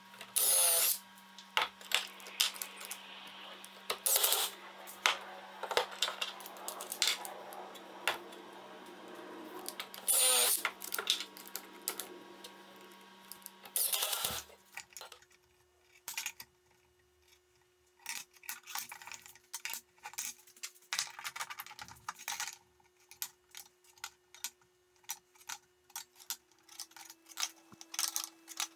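Workshop handling sounds: a long run of small clicks and knocks as tools and parts are picked up and set down, with a few short, louder noisy bursts in the first half.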